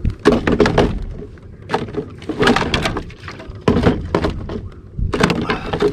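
Handling noise from gear in a small jon boat: about five bursts of rustling and knocking, each well under a second, spread through the few seconds.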